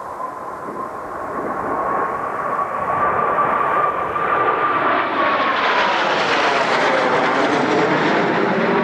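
Kawasaki T-4 jet trainers' turbofan engines approaching and passing close by. The sound grows louder over the first three seconds, and a high whine holds and then falls in pitch about six seconds in as the jets go past.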